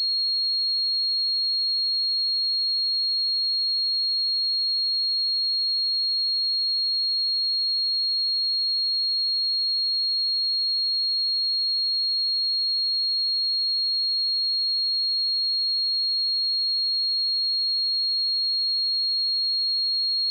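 A steady pure 4278 Hz sine-wave test tone, one unchanging high-pitched note.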